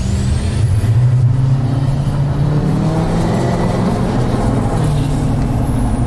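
L5P Duramax 6.6-litre V8 turbodiesel, tuned and straight-piped, pulling under acceleration, heard from inside the truck's cab. The deep engine and exhaust note climbs. Over it a thin, high turbo whistle rises as the turbo spools in the first couple of seconds, and a high whistle falls away near the end. The whistle is loud because of the aftermarket intake piping in the engine bay.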